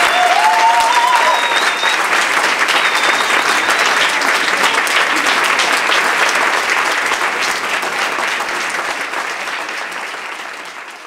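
Crowd clapping steadily, fading out near the end.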